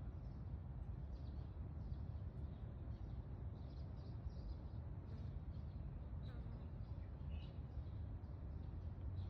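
Faint, scattered high bird chirps over a steady low rumble.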